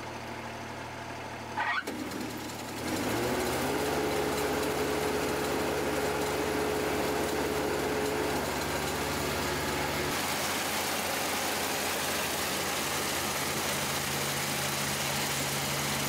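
Kubota Dynamax ER438 combine harvester's diesel engine idling, then, after a brief sharp noise about two seconds in, speeding up and running steadily at higher revs. A steady whine from the machinery is heard for several seconds after the engine speeds up.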